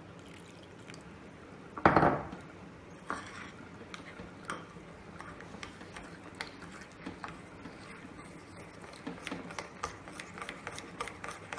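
A metal spoon stirring and scraping batter in a glass bowl, with many small clicks against the glass that get busier near the end. About two seconds in comes a short, loud splash of water poured in from a plastic bottle.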